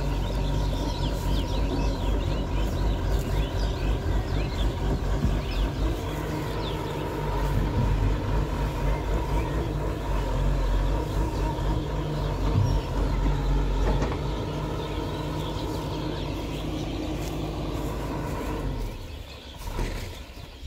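Diesel engine of a Hyundai 210 crawler excavator running steadily, with birds chirping in the background. The sound fades down near the end.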